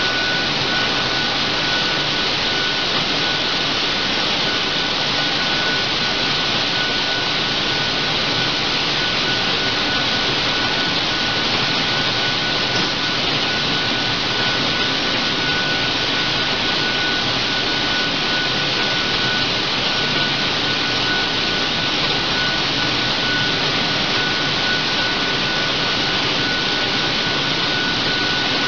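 Steady factory machinery noise: an even rushing hiss with a constant high whine running over it, unchanging throughout.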